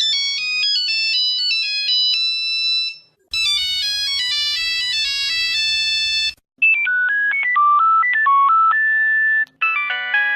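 A phone ringtone melody played in successive versions, each about three seconds long with a short break between them. The first is high and thin, the second fuller, and the third lower over a steady low tone. A fourth version begins near the end.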